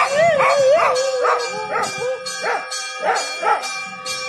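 Dogs howling and yelping in repeated rising-and-falling cries, about two a second, with one longer wavering howl near the start. Underneath, a temple bell rings steadily during the puja.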